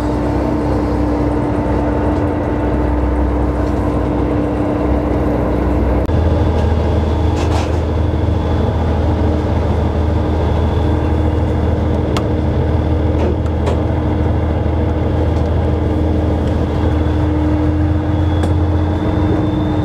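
Engine and machinery of a steel commercial fishing boat running with a steady drone and hum. The drone grows stronger about six seconds in, and a few short knocks come through.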